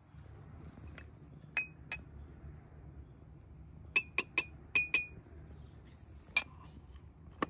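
Thin tulip-shaped tea glasses and glass saucers clinking together as they are handled, each clink ringing briefly. Two light clinks come early, then a quick run of about six about four seconds in, and one more near the end.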